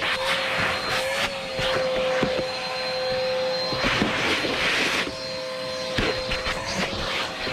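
Vacuum cleaner running with a steady motor whine while its nozzle works over the car's interior; the suction hiss swells and fades as the nozzle moves, with small clicks and rattles of debris being drawn in.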